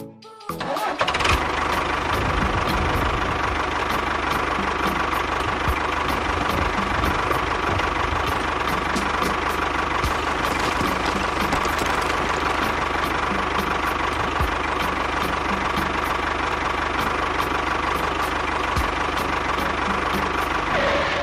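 An engine starting about half a second in, then running steadily with a fast ticking and a low rumble until it cuts off suddenly.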